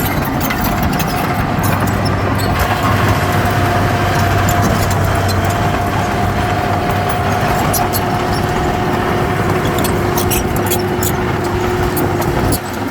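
Heavy earthmoving machinery working: a steady diesel engine under load with a high whine held for many seconds and scattered clicks and clanks. The level dips briefly near the end.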